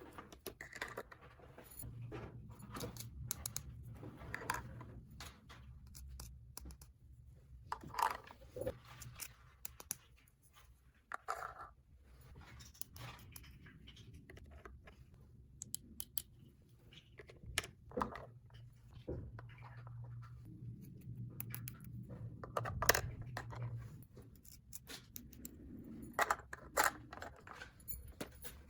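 Small plastic toy pieces handled and set down: scattered clicks, taps and light rattles at an uneven pace, over a faint steady low hum.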